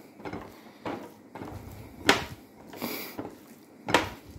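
Seasoned minced chicken being mixed by hand in a glass bowl. The hand handling is soft, with three short sharp sounds spread through it.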